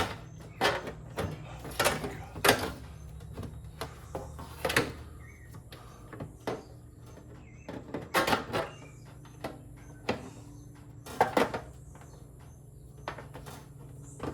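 Irregular plastic clicks and knocks as a mini ice maker's casing panels are pushed and snapped into their slots, with a steady low hum underneath.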